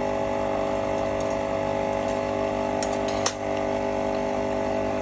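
Capsule coffee machine's pump running steadily as it dispenses hot water through an empty Nespresso adapter into a cup. A sharp click about three seconds in.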